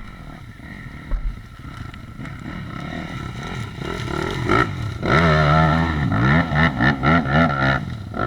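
Small off-road vehicle engine running, then revved hard in a rapid series of rises and falls from about five seconds in until shortly before the end.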